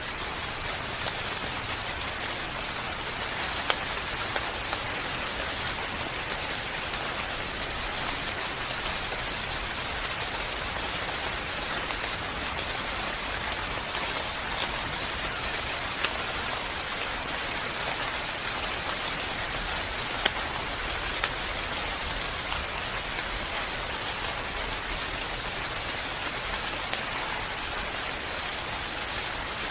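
Steady rain falling, an even hiss with scattered louder drops ticking on a surface now and then.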